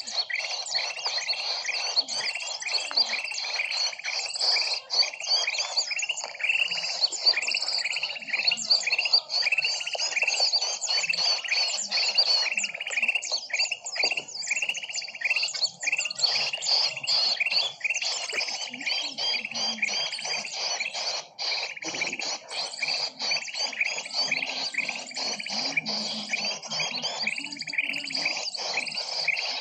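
A bird-lure recording of small birds chirping in a dense, rapid, unbroken stream of short high notes, as played to draw wild birds in for trapping.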